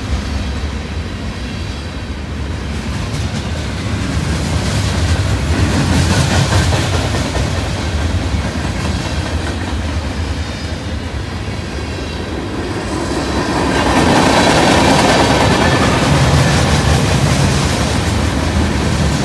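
Freight cars of a Norfolk Southern train rolling past at speed, steel wheels rumbling on the rails in a continuous noise. It grows louder about two-thirds of the way through.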